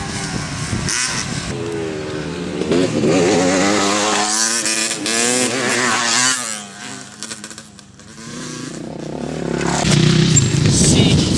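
Motocross bike engine revving hard, its pitch climbing as the bike accelerates, then held high. The engine sound drops away sharply about six and a half seconds in as the bike leaves the jump, and builds again near the end.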